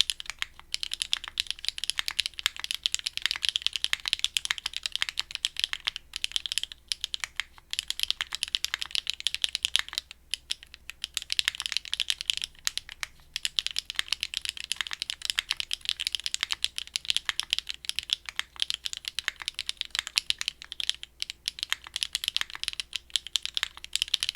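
Fast continuous typing on a custom mechanical keyboard: a Linworks Crescent with HMX Xinhai switches, a polycarbonate plate and Linworks keycaps, giving dense rapid key clicks with a few brief pauses.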